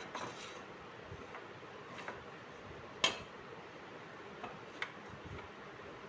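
A few sharp metal clicks from a scooter's greased side-stand pivot rod being pushed into the stand bracket, the loudest about three seconds in.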